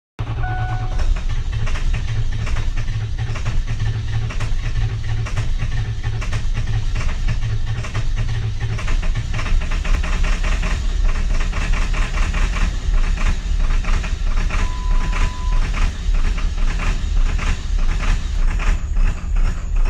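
Ford 7.3 L Powerstroke V8 turbo-diesel being cranked hard on the starter for about nine seconds, a hard start, before it catches and runs with a rough, rapid diesel knock.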